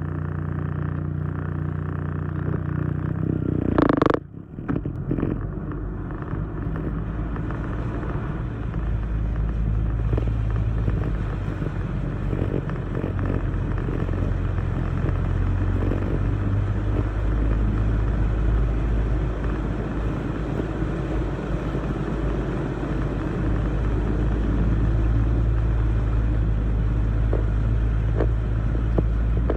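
Motor vehicle's engine running steadily while driving through a river crossing, with a loud sudden burst about four seconds in, followed by a denser, rougher rumble.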